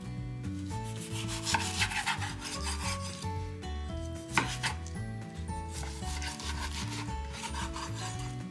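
Kitchen knife slicing through raw chicken thigh on a wooden cutting board: irregular strokes of the blade through skin and meat, with a sharp knock of the blade on the board about four seconds in. Soft background music plays underneath.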